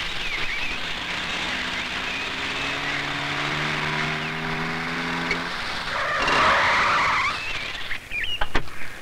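Car engine running with a steady hum while driving, then tyres skidding for about a second as the car brakes to a stop, about six seconds in. A few sharp clicks follow near the end.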